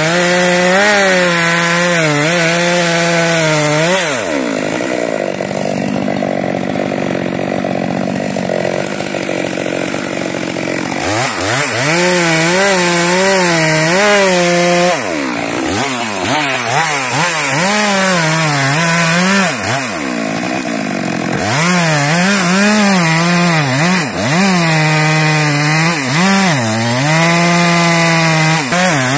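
Stihl MS 462 two-stroke chainsaw cutting through a log at high revs, its engine pitch wavering up and down under the load of the cut. The revs fall away for several seconds about four seconds in, and dip briefly twice more later, before picking back up.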